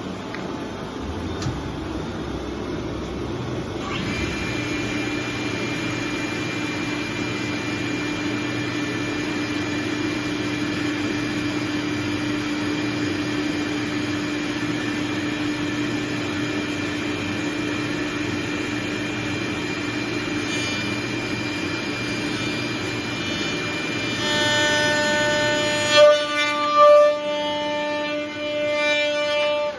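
Kaban CD 3050 three-axis CNC machine running with a steady mechanical whine and hum. About 24 s in, a louder whine of several tones joins it and changes pitch in steps, with two brief louder peaks. It cuts off suddenly at the end.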